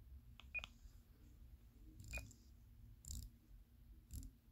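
A few faint clicks from an Icom ID-51 handheld radio's VFO dial and keys being worked, about a second apart, two of them with a short high key beep from the radio.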